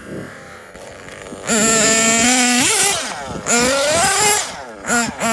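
Small nitro engine of a Kyosho Inferno MP9 TKI4 1/8-scale RC buggy running at high revs. It comes in loud about a second and a half in, with the pitch climbing and falling as the throttle is worked, dropping off briefly twice before picking up again near the end.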